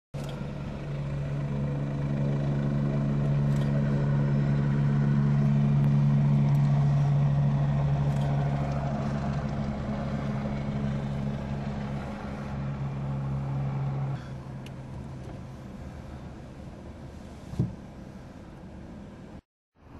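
Helicopter flying overhead, a steady low drone of rotor and engine. It is loudest about six seconds in, drops off at about fourteen seconds and goes on fainter as the helicopter draws away. A single short knock comes near the end.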